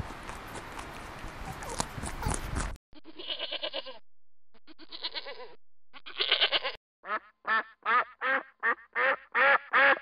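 A rustling noise with scattered clicks for about three seconds, then a goat bleating three times, then a duck quacking in a fast run of about ten quacks, roughly three a second.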